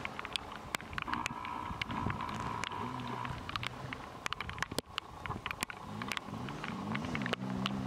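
KTM 250 XC two-stroke dirt bike engine revving up and down, its pitch rising and falling with the throttle, with many sharp ticks scattered throughout.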